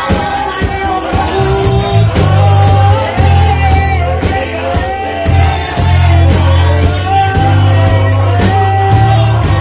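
Live worship music: voices singing into microphones over a band, with long held bass notes and a steady beat.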